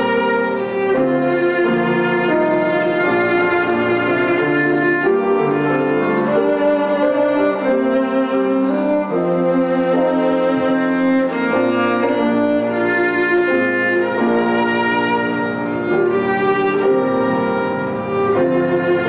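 Violin playing a melody of sustained bowed notes, accompanied by piano.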